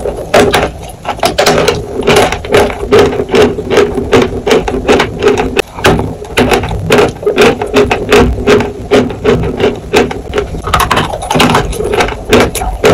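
A block of dry chalk being bitten and chewed: a dense run of sharp, dry crunches, several a second, as the chalk breaks between the teeth.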